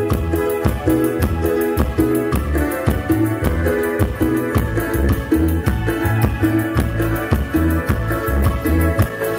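Chilena mixteca dance music played over a loud sound system, with a steady beat and bass.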